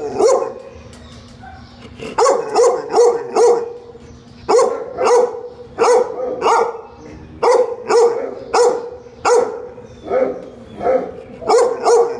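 A dog barking over and over, in quick runs of three to five barks with short pauses between the runs.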